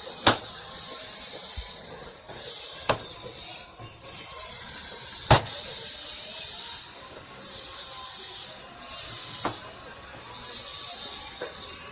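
Hissing that starts and stops abruptly in stretches of one to three seconds, with a sharp click now and then, from hands-on work on a washing machine.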